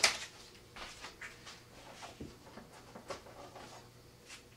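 Masking tape being peeled off epoxied rocket fin fillets and handled, stripping the excess epoxy: a loud rip right at the start, then faint scattered rustles and light crinkles.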